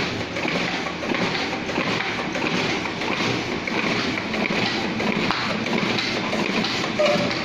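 Riso KZ30 digital duplicator running, with a steady rhythmic clatter as it feeds and prints sheets.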